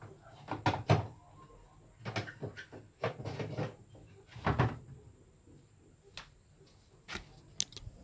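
Several irregular knocks and clunks, like a door or cupboard being handled. The loudest come about a second in and about four and a half seconds in.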